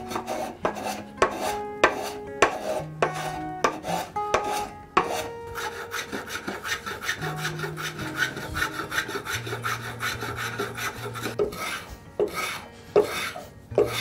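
Hand tools shaving hardwood in quick repeated strokes, about two a second: a spokeshave, then a block plane chamfering the edges of a small block, each stroke a short rasping cut.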